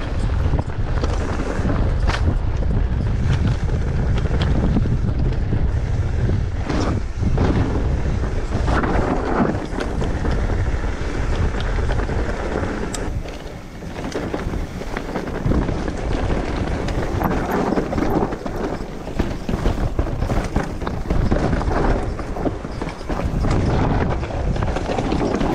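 Wind buffeting the microphone of a mountain bike descending a rocky dirt trail, with tyres crunching over gravel and the bike knocking and rattling over bumps. The noise eases briefly about halfway through.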